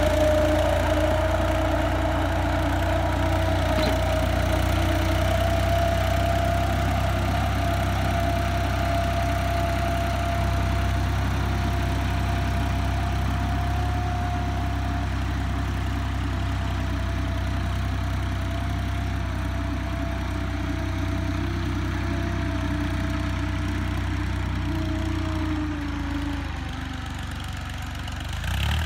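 Farm tractor engine running steadily while it pulls a tine cultivator through dry soil, with a steady whine over the low engine drone. The whine fades out near the end.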